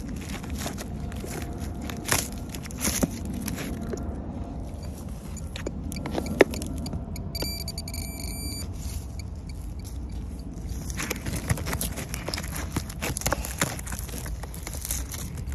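Dry, weathered dead wood being prised and broken apart with a hand tool and gloved hands: irregular crackling, splintering and scraping, with one sharp knock about six seconds in.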